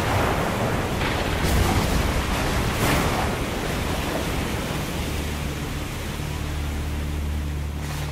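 Rushing noise of a stormy sea, swelling in a few surges, with a low steady music drone coming in about five seconds in.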